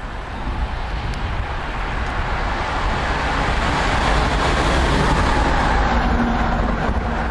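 Electric locomotive passing at speed: a rising rush of wheel and rail noise that peaks about four to five seconds in and then eases, with a low steady hum near the end.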